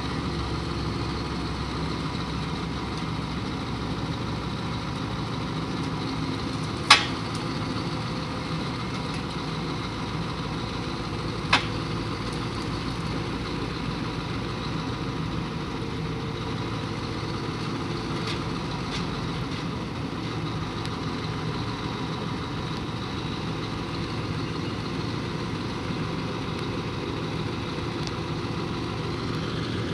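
Scania R620's V8 engine running at a steady speed, driving a truck-mounted Bruks wood chipper, an even mechanical drone. Two sharp knocks stand out, about seven and about eleven and a half seconds in, the first the loudest.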